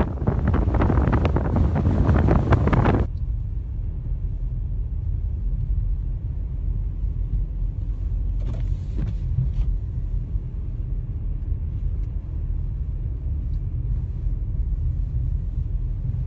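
Blizzard wind gusting against the microphone, loud and hissing, cut off abruptly about three seconds in and followed by a steady low rumble.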